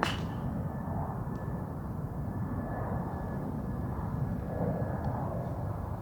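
A single sharp golf club strike on the ball at the very start, with a short ring after it, over a steady low rumble and a faint, thin, steady high hum.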